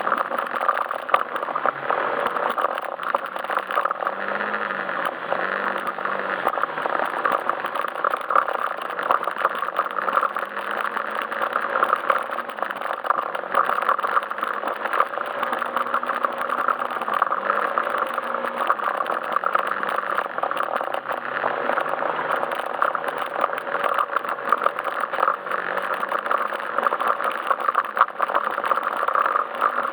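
Yamaha Majesty S scooter's single-cylinder engine running while riding, its note rising and falling a little with the throttle, over steady ride noise and rattling.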